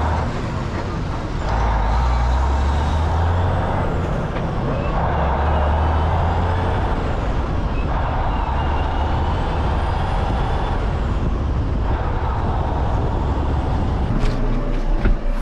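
Large diesel farm machinery running steadily under load, with a low engine drone and a higher mid-pitched drone that comes and goes every couple of seconds. A few sharp clicks come in near the end.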